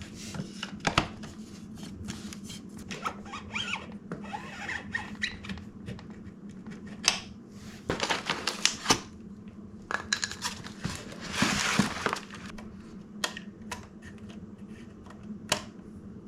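Scattered clicks, light knocks and rustling from hands handling bicycle parts during assembly, over a faint steady low hum.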